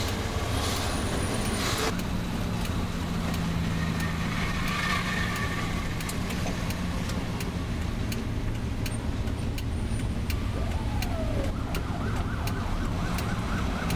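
Car engine and road noise heard from inside the cabin while driving in city traffic, with a steady hum for a few seconds and a short falling tone near the end.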